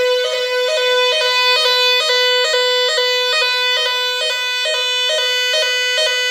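Nugelec DSB 3000 electronic fire alarm sirens sounding the evacuation signal: a short higher note and then a longer lower note, repeating about twice a second. This is the French standard general-evacuation tone of a type 4 fire alarm system under test.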